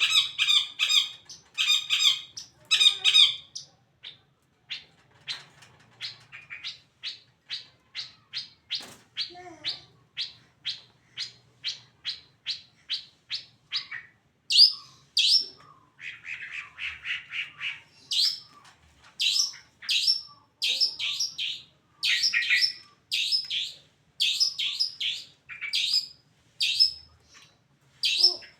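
A songbird calling in a long series of short, harsh notes repeated about twice a second. The notes are loud at first, softer for a while, then loud again, with a couple of high rising notes midway.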